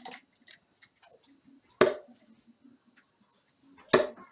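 Steel-tip darts clicking and scraping as they are pulled out of a bristle dartboard, followed by two sharp knocks about two seconds apart.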